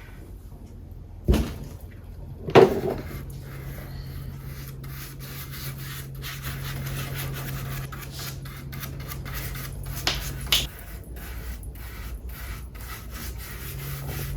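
Cloth rubbing tung oil into a carved jarrah wood piece, with two sharp knocks of the wood being handled about a second and two and a half seconds in and a few lighter knocks later. A low steady hum runs under much of it.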